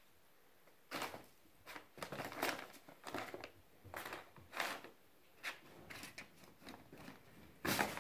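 Plastic cat-litter bag crinkling and rustling in irregular bursts as two kittens pounce and scramble on it, starting about a second in, with the loudest crinkle near the end.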